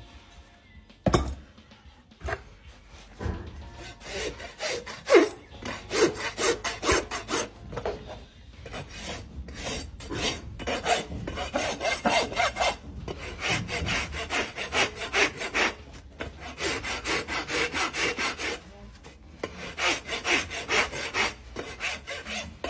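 Farrier's rasp filing a horse's hoof: runs of rapid back-and-forth scraping strokes with short pauses between them. A sharp knock comes about a second in.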